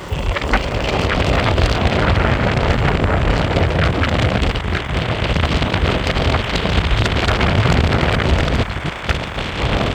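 Wind rushing over the microphone and honeycomb wheels rumbling on pavement as a Meepo Hurricane electric skateboard runs at high speed. The noise comes in suddenly at the start and stays steady and loud, easing briefly near the end.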